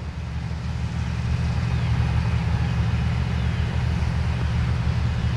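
Steady low rumble, with a couple of faint, short, high chirps from birds about two and three and a half seconds in.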